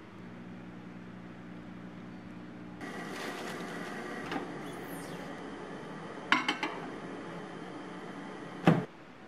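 A steady electrical hum, then louder kitchen handling noise with a few sharp clicks, and a loud clunk near the end as a countertop microwave oven's door is pulled open.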